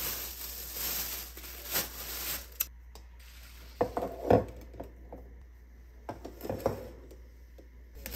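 Plastic bag crinkling as a bunch of spinach is pulled out of it. This is followed by several light clacks and knocks of eggs being set down on a stone countertop, in two clusters.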